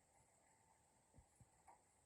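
Near silence: faint room tone with three soft, low knocks close together in the second half.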